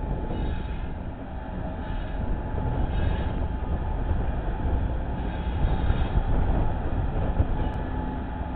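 A train running by: a steady low rumble, with a faint steady tone, growing a little louder toward the middle.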